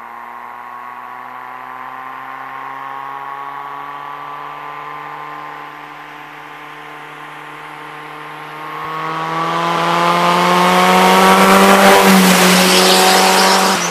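Turbocharged Nissan Sentra B13 GA16DE four-cylinder engine pulling under acceleration. The revs climb slowly, then rise faster and louder with a growing hiss from about nine seconds in, and drop off suddenly at the very end. Here it seems to run fine, without the breaking up it had elsewhere.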